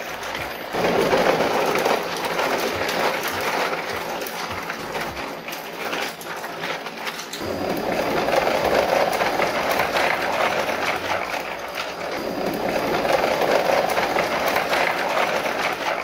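Plastic toy dump trucks rolling in a line over gritty ground, their hard plastic wheels and bodies rattling steadily. The rattle grows louder about a second in and again about seven seconds in.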